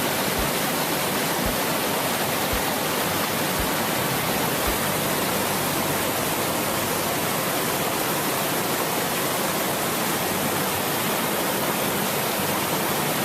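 River water rushing steadily over rapids. A few faint low thuds come about once a second during the first five seconds.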